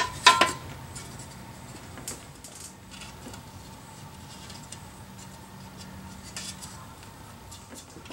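A sheet-metal cover plate being test-fitted against the mill's Y-axis casting: a sharp metal clack right at the start, then a few light metallic taps and clinks over a low steady hum.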